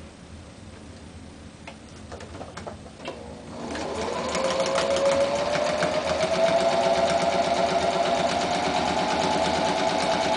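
Electric domestic sewing machine. After a few light clicks as the fabric is set under the presser foot, the motor starts about four seconds in, quickly speeding up, then runs steadily, stitching a seam.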